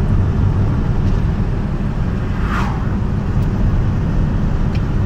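Steady engine and road rumble inside a small truck's cab while driving at speed. About two and a half seconds in, a short squeak falls in pitch.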